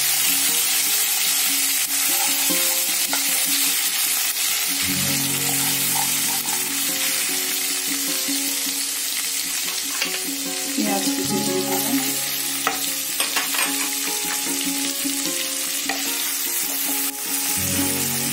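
Garlic paste and whole spices sizzling in hot mustard oil in a kadai, with a wooden spatula stirring and scraping against the pan. Soft background music plays underneath.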